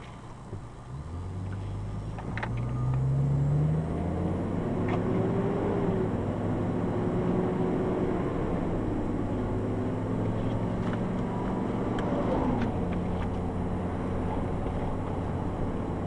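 A road vehicle's engine picks up speed about a second in, climbing in pitch for a few seconds, then runs steadily at speed over road noise. A few faint clicks are scattered through it.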